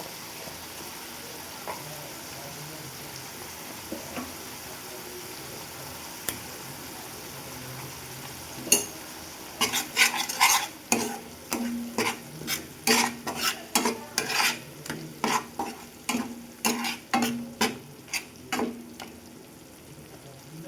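Fish curry sizzling in hot oil in a pan, a steady hiss. From about ten seconds in a spoon stirs and scrapes against the pan in quick strokes, about two a second, stopping near the end.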